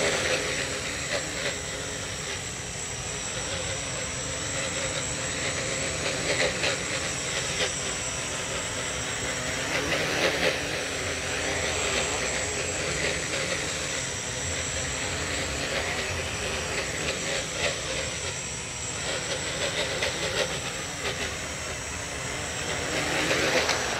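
Home-built quadcopter's four Racerstar BR2212 1000KV brushless motors spinning their propellers with a steady whir and a thin high whine, swelling and easing with the throttle as the drone lifts off the ground.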